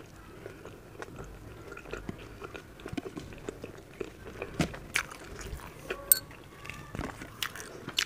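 Close-miked chewing of a mouthful of chapati with potato-and-capsicum sabji: wet mouth smacks and short sharp clicks, sparse at first and busier and louder from about halfway in.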